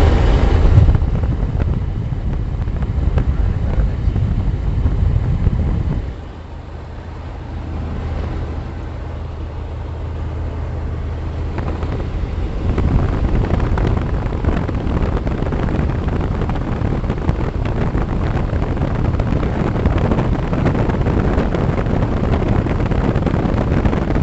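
Chevrolet 454 big-block V8 engine of a motorhome idling steadily, with a low, even rumble. It drops noticeably in loudness about six seconds in and grows louder again around twelve seconds in, with some wind-like rushing on the microphone.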